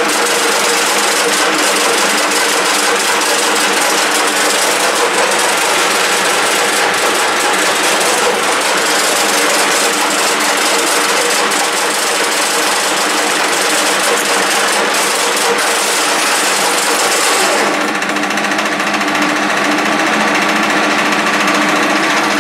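Soviet 1K62 screw-cutting lathe running under power while machining a PTFE bushing: a steady mechanical whir with several gear tones from the headstock over a hiss. About three-quarters of the way through, the upper hiss drops away and the lathe runs on with only its lower whir and gear tones.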